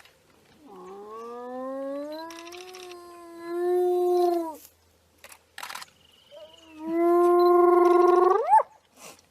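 A hyena giving two long, drawn-out whooping calls. The first rises slowly in pitch and grows louder. The second is held steady and then sweeps sharply upward at its end.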